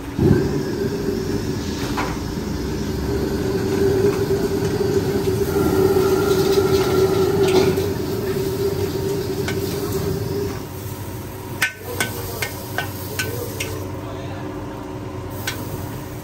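Wok burner running loudly under noodles frying in a large iron wok. It stops about ten seconds in. After that a metal ladle scrapes and clinks against the wok several times as the noodles are scooped out.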